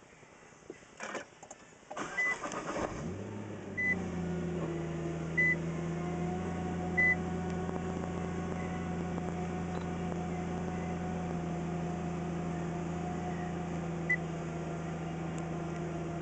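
Nissan GT-R's twin-turbo V6 cranking over and starting about three seconds in, then idling steadily. A few short high electronic beeps sound over the first seconds of the idle, about a second and a half apart, and once more later.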